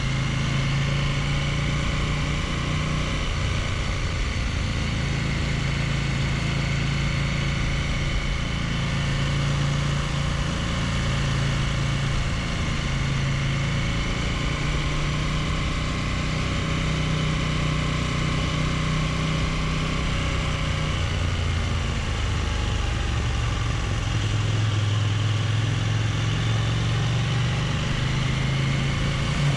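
Motorcycle engine running steadily at low, town-road speed, its note drifting slightly up and down, with wind and road noise over it.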